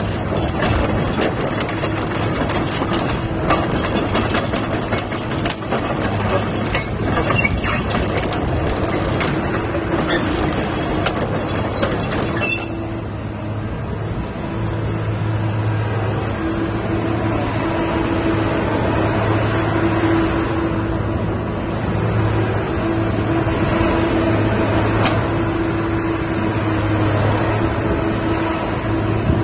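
Komatsu PC220 hydraulic excavator's diesel engine running at a steady speed as the boom and arm are worked, a constant hum. Rapid clicks and rattles sound over it for about the first twelve seconds, then stop abruptly, leaving the steadier engine hum.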